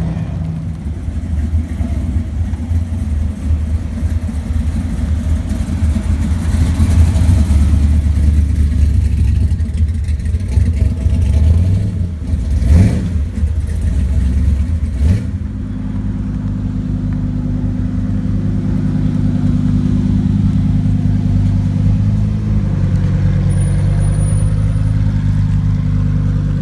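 Performance car engines. For the first half one engine is loud and revving hard as it accelerates away, with two sharp cracks about 13 and 15 seconds in. After that an engine runs more steadily with an even low drone that shifts near the end.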